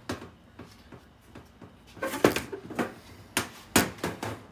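Metal clunks and knocks from handling the stainless steel pipe and its purge caps: quiet at first, then a cluster of sharp knocks and clatters from about two seconds in.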